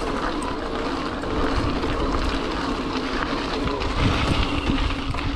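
Tongsheng TSDZ2 mid-drive e-bike motor whining steadily while riding, its pitch wavering slightly, over wind noise on the microphone; a few low thumps about four seconds in.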